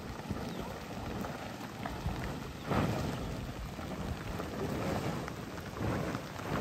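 Steady rain falling, with low rumbling surges about three seconds in and again near the end.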